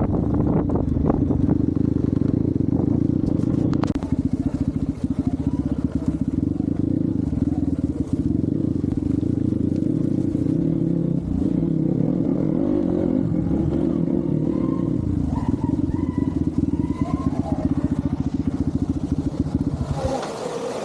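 Hero Xpulse 200 single-cylinder motorcycle engine running under riding load, its pitch rising and falling with the throttle, with occasional sharp clicks and knocks; it cuts off suddenly near the end.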